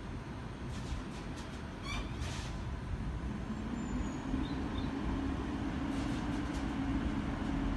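Siemens Class 707 electric multiple unit at the platform, its equipment giving a steady low hum, with a low drone coming in about three and a half seconds in and holding. A brief rising high chirp sounds about two seconds in.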